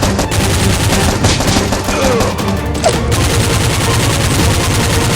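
Bursts of rapid automatic gunfire, dubbed over background music.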